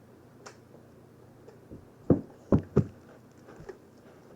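Three dull thumps in quick succession a little over halfway through, with faint handling noise around them.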